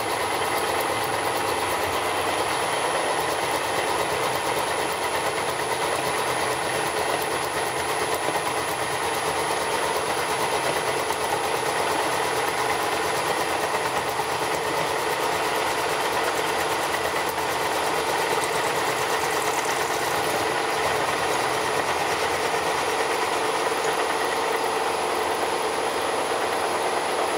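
Vertical milling machine running, its end mill cutting a plastic block with a steady mechanical rattle as chips fly. The cutter is wobbling in its holder and the machine is 'not happy' with the cut.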